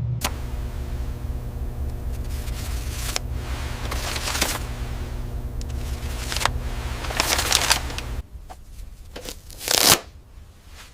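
A small machine runs with a steady hum while several short rasping, rustling noises come and go over it. The hum stops about eight seconds in, and one louder rasp follows near the end.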